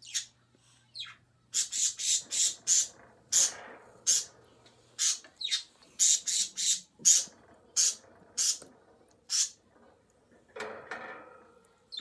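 Budgerigars calling: a rapid run of short, sharp, high-pitched chirps and squawks, two or three a second, then a softer, rougher noise near the end.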